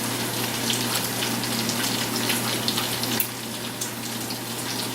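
Food frying in a pan: a steady sizzling hiss with scattered small pops, over a constant low hum.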